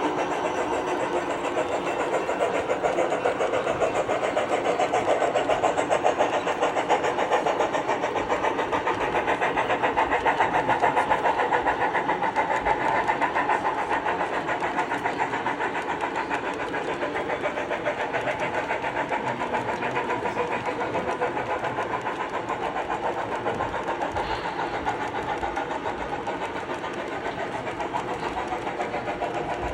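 Train running steadily along the track: a continuous mechanical running sound with a fast, even clatter. It swells a little in the first third, then eases.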